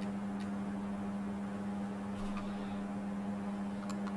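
A steady low hum with a buzzing ladder of overtones, unchanging throughout, with a few faint ticks.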